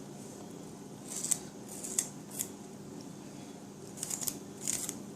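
Knife cutting vegetables on a cutting board: about half a dozen short cuts at uneven intervals, over a faint steady hum.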